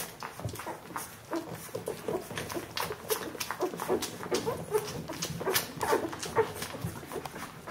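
Two-week-old Bernese Mountain Dog puppies nursing: frequent quick wet suckling clicks and smacks, with many short little squeaks and grunts scattered through.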